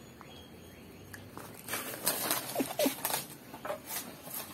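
Rustling and crinkling of an opened foil snack bag being handled, in a run of irregular crackles through the middle, with two brief squeaks among them.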